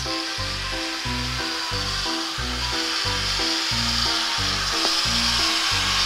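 Background music with a steady beat over an electric angle grinder cutting through a 9 mm steel round bar, a continuous high hiss of the disc grinding through the metal.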